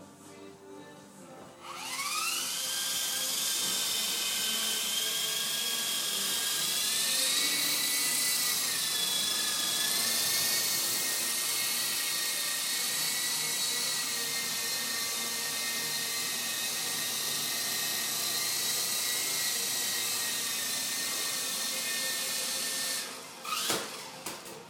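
Small electric motors of a Lama coaxial toy RC helicopter spinning up with a rising whine about two seconds in, then holding a steady high whine in flight. Near the end the whine stops, followed by a couple of knocks.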